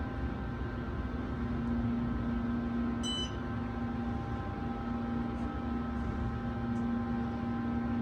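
Otis hydraulic elevator running as the cab rides up, a steady hum of its machinery heard inside the cab. A short electronic beep sounds about three seconds in, as the car passes into the first floor.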